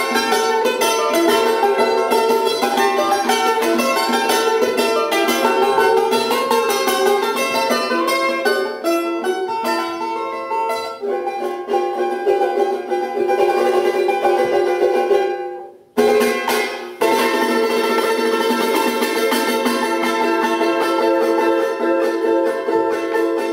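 Solo charango playing: quick runs of plucked notes, then longer held notes that die away to a brief hush about two-thirds through. It comes back in with a sudden loud chord and keeps playing.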